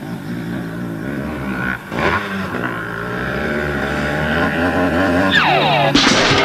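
Motorcycle engine of a sidecar motocross outfit revving. It drops off briefly about two seconds in, then climbs steadily in pitch. Near the end there is a quick downward glide in pitch, and louder music cuts in at the very end.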